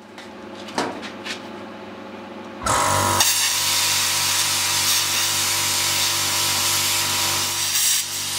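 Plasma cutter cutting steel sheet. At first there is a steady machine hum with a couple of clicks; about two and a half seconds in, the loud, even hiss of the cutting arc and air starts and holds.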